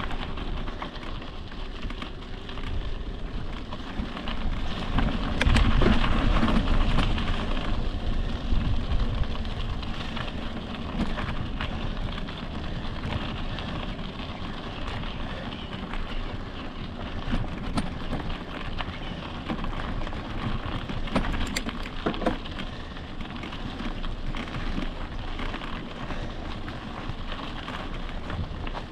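Electric mountain bike rolling along a dirt trail: tyres crunching over gravel with scattered clicks and rattles from the bike. Wind buffets the microphone, loudest about five to nine seconds in.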